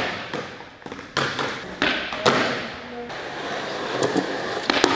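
Skateboard being ridden and landed on a concrete floor: about six sharp clacks and thuds of the board hitting down, with the wheels rolling in between. The board is a prototype deck built without maple, whose landings sound like a thud.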